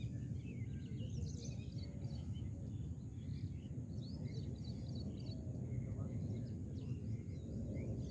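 Several small birds chirping and calling, many short scattered chirps, over a steady low outdoor background rumble.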